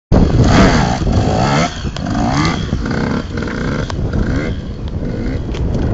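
Motocross bike engine revving hard as it pulls away, the pitch climbing and dropping again several times as it shifts up through the gears, loudest at the start and then somewhat fainter as the bike moves off.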